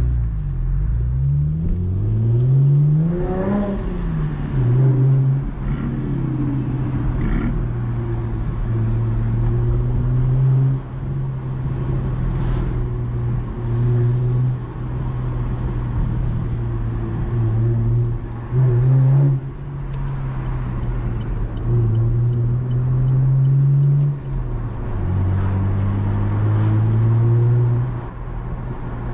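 Chevrolet Camaro engine accelerating hard, its pitch rising steeply for the first few seconds before a gear change drops it. It then pulls steadily through town, with repeated brief lifts and shifts in pitch as the throttle is eased and reapplied.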